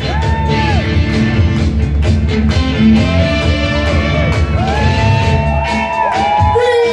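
Loud music for the dancers, with a heavy bass beat and gliding vocal lines over it.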